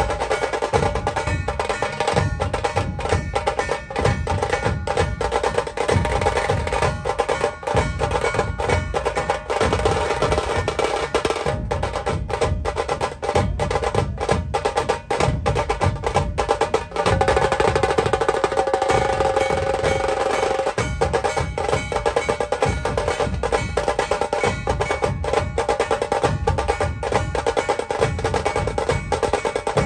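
Loud festival music driven by fast, dense drumming with heavy low drum beats, over a melody that holds a long note about seventeen seconds in.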